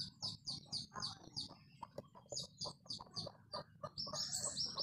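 Birds chirping in a fast, even series of short high notes, about four or five a second, with a louder run of chirps near the end.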